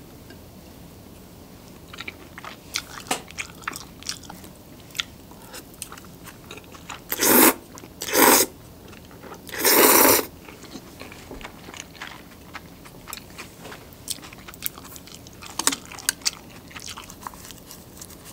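Close-miked eating: soft chewing of chashu pork and oil-dressed ramen noodles with many small wet clicks. Three loud slurps of noodles come between about seven and ten seconds in, then the chewing goes on.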